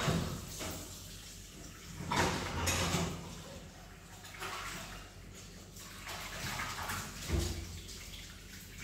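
Washing up at a kitchen sink: water running and splashing, in uneven swells, with louder bursts near the start, around two to three seconds in, and briefly near seven seconds.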